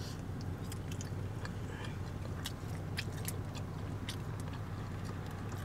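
Close-up biting and chewing of a slice of pesto basil pizza, with many short, wet mouth clicks and small crackles scattered through. A steady low hum runs underneath.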